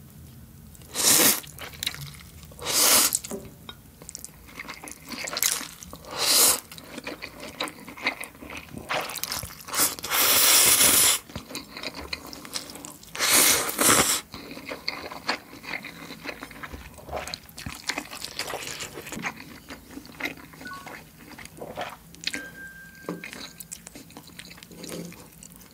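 A person slurping instant ramen noodles close to the microphone, in a series of loud slurps. The longest lasts over a second, about ten seconds in. Between and after the slurps come quieter wet chewing and smacking sounds.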